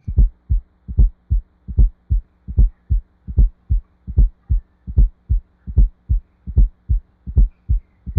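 Recorded heart sounds with an S4 gallop, the extra sound just before S1 that comes from the atrium filling a stiff, hypertrophied ventricle. The thumps come in a steady rhythm of about two and a half a second, over a steady low hum.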